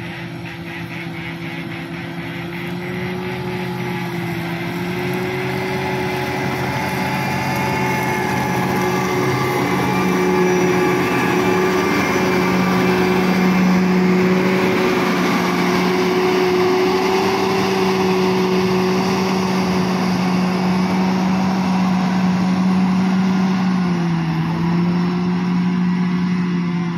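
Motor grader's diesel engine running steadily under load while it grades a gravel road. It grows louder as the machine comes close around the middle, and the engine note drops slightly in pitch near the end.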